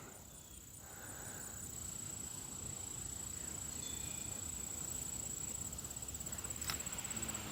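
Crickets trilling steadily in one high, unbroken tone over faint outdoor background noise, with a single sharp click near the end.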